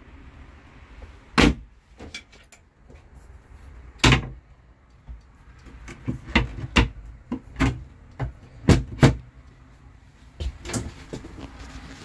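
Wooden cabinet doors in a motorhome being opened and shut by hand: a string of sharp knocks and latch clicks, the loudest about four seconds in and a quick run of them a couple of seconds later.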